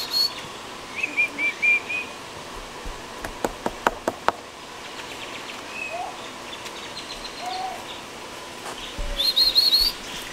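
Birds chirping: a quick run of short chirps about a second in and a louder run of high, rapid chirps near the end, with a few sharp clicks in between.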